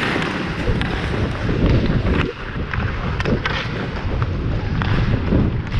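Wind rushing over a helmet-mounted action camera as the skater moves, with skate blades scraping the ice and a few sharp clicks of sticks and puck during ice hockey play.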